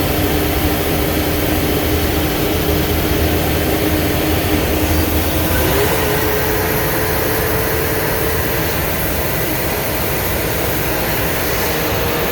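Blue Bird school bus driving, its engine and road noise running steadily. A thin whine in it steps up in pitch about halfway through.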